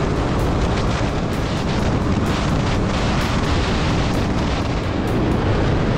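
Wind rushing and buffeting over an action camera's microphone on a motorcycle at road speed, with the rumble of the bike's engine and tyres underneath.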